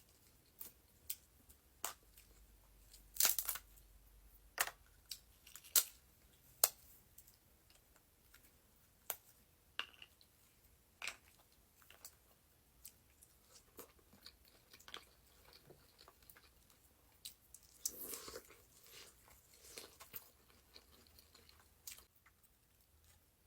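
Close-miked mukbang eating of a seafood boil: scattered sharp clicks, bites and crunches of chewing. Denser crackling comes about three seconds in and again around eighteen seconds.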